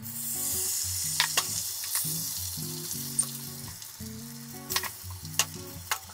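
Beaten egg poured into a hot oiled rectangular tamagoyaki pan, sizzling at once and loudest in the first couple of seconds, then easing as it sets. A few sharp clicks of utensils against the pan, over light background music.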